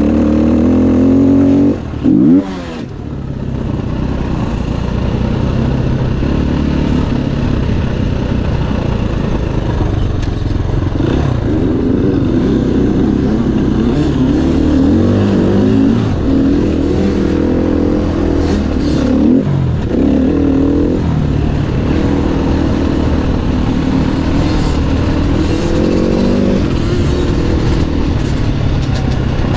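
Dirt bike engine heard onboard, revving up and down as it is ridden hard, the throttle briefly shut about two seconds in and then opened again.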